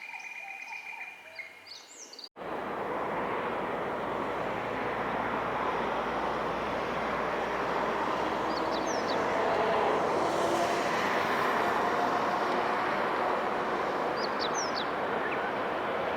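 Brief high chirps of small birds, then an abrupt cut about two seconds in to a steady rushing background noise like distant engines and traffic. Over it come a few short, high, falling chirps, twice, about six seconds apart.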